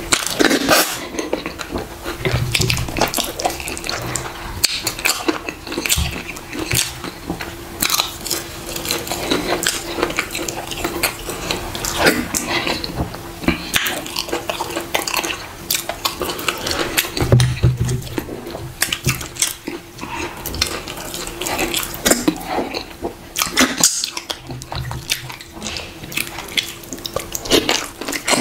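Close-miked eating by hand: fingers squishing fufu and dragging it through stretchy, slimy ogbono soup, with wet lip smacks and chewing. It comes as a steady stream of short sticky clicks and smacks.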